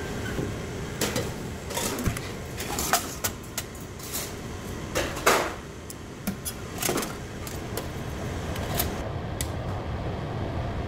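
Irregular clinks and clatter of metal serving tongs against stainless-steel food pans and a steel compartment tray at a cafeteria serving line, over a steady background noise.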